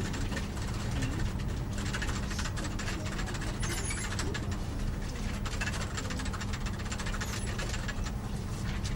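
Office room ambience: a steady low hum with a faint steady tone, and many small clicks and rattles scattered over it.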